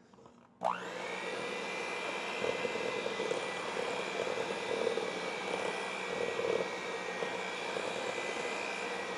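Hamilton Beach electric hand mixer switched on under a second in, its motor whining up quickly to a steady speed. The beaters churn stiff butter-and-flour shortbread dough in a stainless steel bowl, with an uneven churning under the steady motor whine as the dough comes together.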